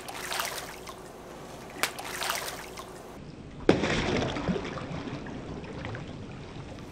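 Tarpon striking at fish scraps held at the water's surface, splashing several times; the biggest splash comes about three and a half seconds in and is followed by water sloshing and settling.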